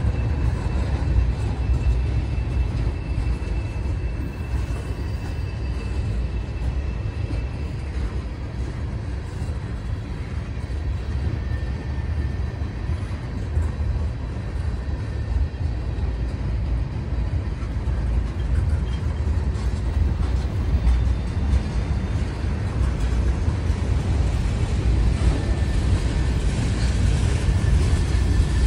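Slow freight train of tank cars and covered hoppers rolling past close by: a steady low rumble of wheels on rail, with a thin high squeal of wheels against the rail in the first several seconds and again near the end.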